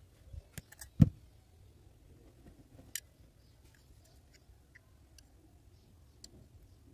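Handling noise of small hand work on a plastic charger casing, copper wire and pliers: a quick run of clicks and taps in the first second ending in a low thump, the loudest sound, then a single sharp click about three seconds in and faint scattered ticks.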